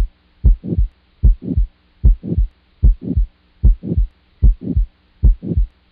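Recorded heartbeat of aortic stenosis, about 75 beats a minute. Each beat is a pair, the first and second heart sounds about a quarter second apart, with a swishing crescendo-decrescendo systolic murmur between them. A faint steady hum runs underneath.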